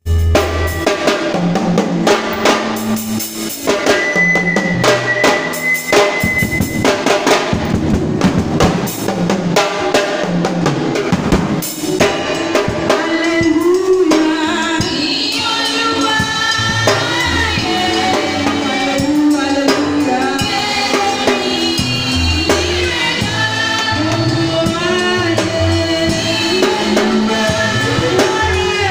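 Drum kit played fast, with dense snare and bass drum strokes, in a groove of African praise music. From about twelve seconds in, a pitched melody comes in over the drums.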